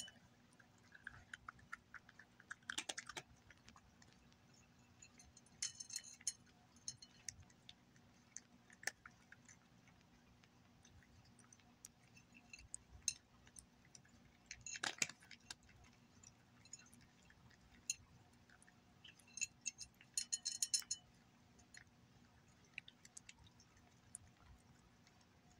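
A cat crunching dry kibble. The chewing comes as faint, sharp crunches in several short flurries a few seconds apart.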